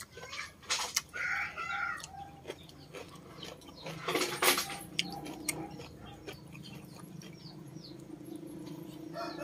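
Chickens clucking in the background over close eating sounds: clicks, lip smacks and chewing. There is a short, loud burst of noise about four seconds in.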